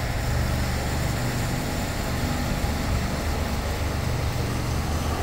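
Engine of a large, about half-scale radio-control Cub model airplane running steadily at a low, even pitch.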